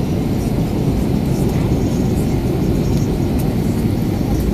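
Cabin noise inside an Airbus A321-211 airliner in flight on its landing approach: a steady, loud, low rush of airflow and the CFM56 turbofan engines heard through the fuselage.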